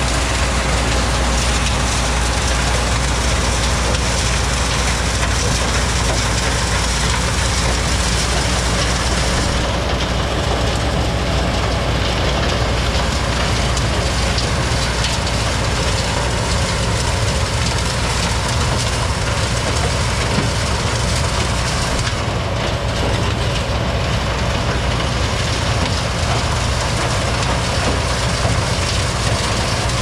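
Combine harvester running steadily at work: a low, even engine note under a dense mechanical noise that does not change.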